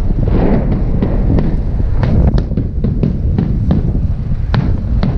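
Aerial fireworks shells bursting: a steady run of irregular sharp cracks and pops over a continuous low rumble.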